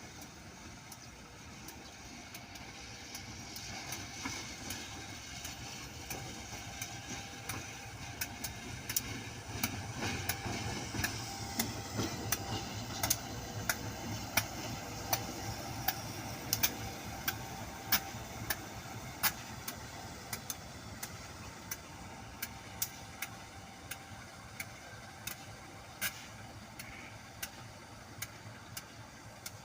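Train moving slowly past: a low engine rumble that swells and fades over about twenty seconds, with sharp clicks roughly once or twice a second.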